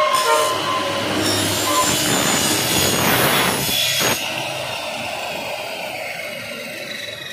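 Miter saw cutting through an aluminum window-frame profile: the blade's rasping cut sits over the motor's steady whine and stops abruptly about four seconds in. The blade then keeps spinning, its whine slowly getting quieter.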